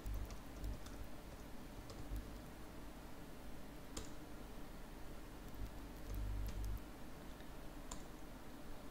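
Computer keyboard typing, faint and sparse: scattered key clicks as short terminal commands are typed and entered, with two sharper clicks about four seconds apart. A few soft low bumps sit under the typing, the longest about six seconds in.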